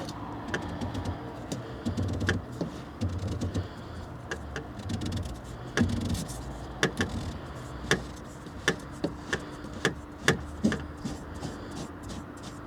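Hand-unscrewing a diesel fuel filter housing under a car: irregular clicks and knocks of the housing and tools being handled, with a few low thuds and a faint steady hum.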